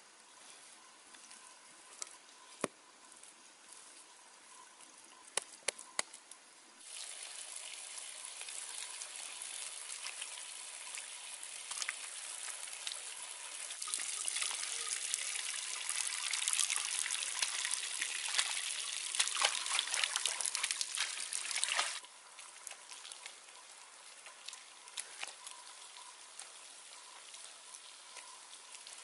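Water trickling and pouring, starting suddenly a few seconds in, growing louder midway and cutting off abruptly, with a few light clicks before it.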